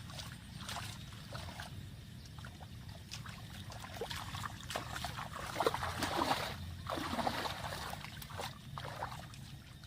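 Water splashing and trickling in irregular sloshes, loudest around the middle, over a steady low rumble.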